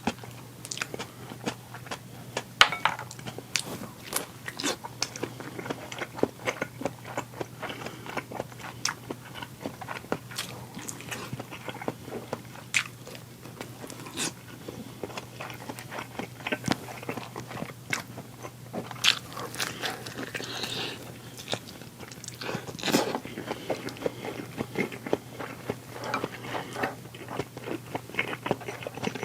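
Close-up biting and chewing of a tomahawk chicken drumstick: irregular crunches and sharp mouth clicks, over a faint steady low hum.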